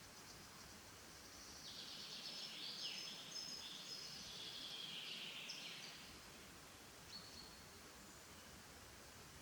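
Faint birdsong: a run of high chirps and falling whistles about a second and a half in, lasting about four seconds, then a single short note near the end, over quiet forest background.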